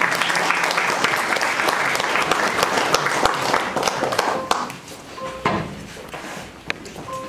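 Audience applauding, dying away after about four and a half seconds, followed by scattered knocks and shuffling.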